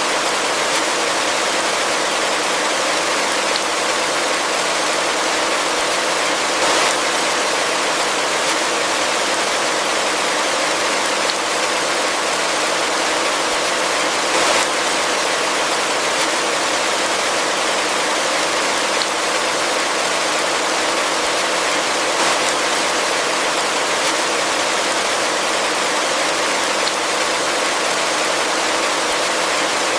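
Heavy rain falling steadily, a dense even hiss, with a few brief slightly louder spatters.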